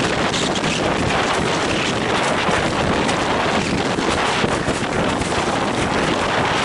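Strong wind buffeting the microphone of a camera mounted on a windsurf rig sailing fast over choppy water, a steady, dense rush of noise, with the water rushing beneath the board.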